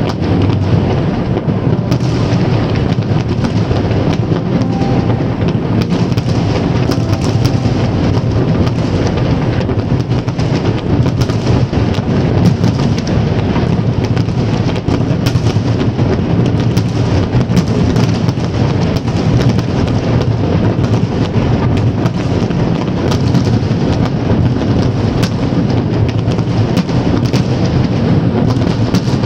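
Fireworks display going off without a break: a dense, continuous barrage of booms with many sharp crackles over it.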